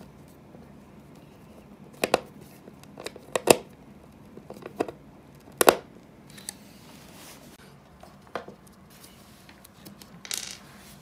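Scattered sharp clicks and light knocks, a second or two apart, from flat-pack furniture being put together by hand: a screwdriver turning screws into plastic fittings on a chipboard panel, with a short rustle near the end.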